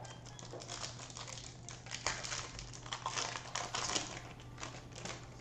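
The wrapper of a Prizm Monopoly basketball card pack crinkling as hands tear it open, a dense run of irregular crackles.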